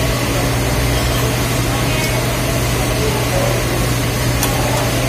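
Steady background din of a fast-food dining room: a constant low mechanical hum under even noise, with no sudden events.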